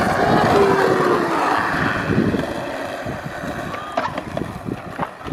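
Skateboard wheels rolling on smooth concrete, a steady rumble that is loudest in the first couple of seconds and then fades, with a few light clicks near the end.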